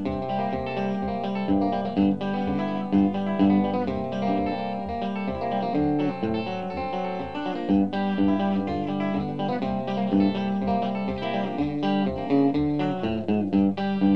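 Instrumental guitar break: a Telecaster electric guitar picking quick single-note lead lines over a steadily strummed acoustic rhythm guitar, keeping an even beat of about four a second.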